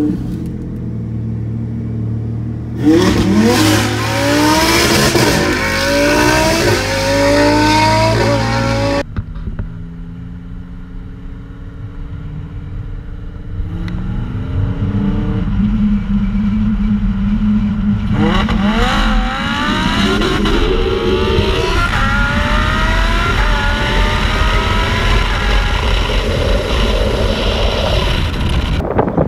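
Lamborghini Huracán's V10 accelerating hard, its pitch climbing in a string of rising sweeps broken by upshifts. After a cut it settles to a lower steady drone, then pulls hard through the gears again in the second half.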